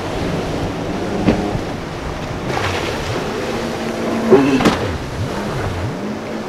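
Motorboat engines running over churning water and surf, with a few sharp slaps about a second in and again past the middle. Near the end a jet ski's engine pitch swings up and down repeatedly as it carves tight turns.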